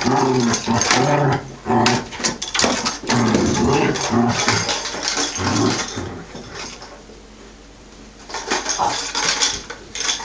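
Collie puppy growling in play, a run of short low growls one after another, then quieter, with light clicking and rattling near the end.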